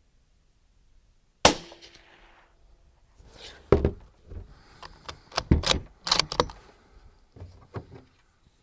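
A single shot from a Mossberg MVP bolt-action rifle about a second and a half in, the loudest sound, with a short ringing tail. A couple of seconds later comes a run of metallic clicks and clacks as the bolt is worked to eject the spent case and chamber the next round.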